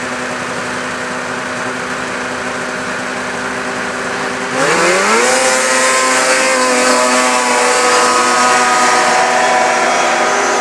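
Two racing snowmobiles idling at the start line, then launching at full throttle about four and a half seconds in. The engines climb steeply in pitch and hold at high revs as the sleds pull away up the hill.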